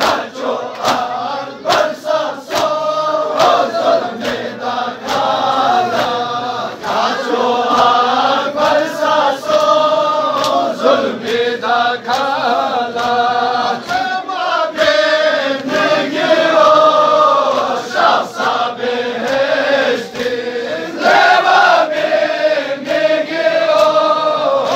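A crowd of men chanting a Balti noha (lament) together, kept in time by a steady beat of sharp hand slaps on chests (matam).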